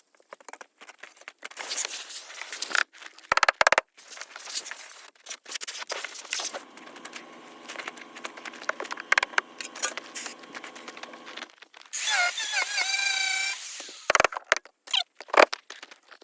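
Metal hand-tool work on a battery pack's bolts: repeated clinks and knocks, a steady hum for several seconds in the middle, and a loud wavering squeal for about a second and a half near the end.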